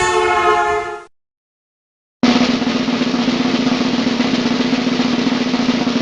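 A held horn tone cuts off about a second in. After a second of silence, a steady snare drum roll starts and runs on to the end.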